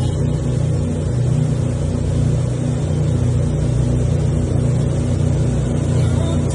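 Boat engine running steadily, a low, even hum.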